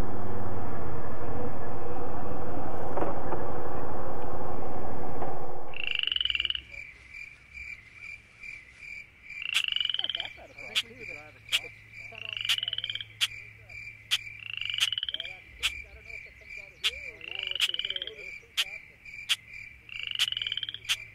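ATV engine running, cutting out about six seconds in. After that, frogs call with a repeated rising high call over a steady pulsing high trill and sharp regular clicks.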